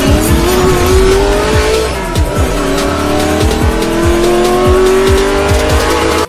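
Car engine sound effect revving up in two long rising runs, its pitch climbing each time, over an electronic beat with repeated bass thumps. It cuts off abruptly at the end.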